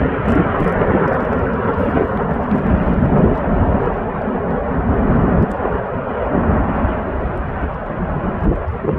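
Steady, loud, jet-like roar of an erupting volcanic vent, with a continuous deep rumble underneath.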